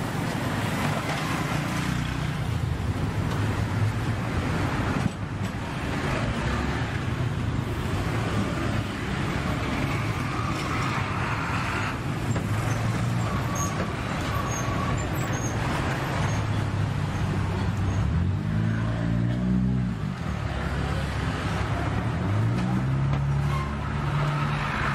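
Steady road traffic passing close by, with a motor vehicle's engine rising in pitch as it speeds up, twice near the end.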